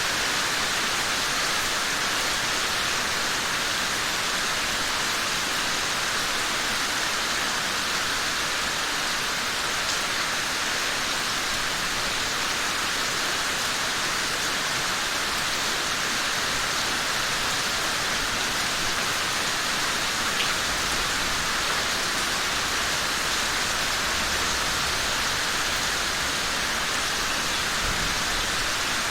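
Steady rain falling, an even hiss that holds at one level without pauses.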